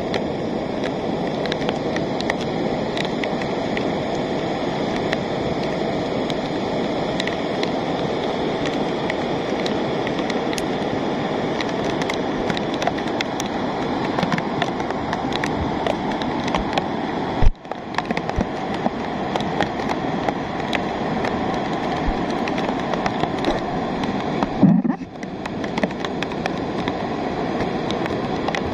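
Steady rush of rain and of a muddy rain-fed lahar (volcanic mudflow) flowing down its channel, with many small raindrop ticks on the phone. Two brief knocks of handling noise come in the second half.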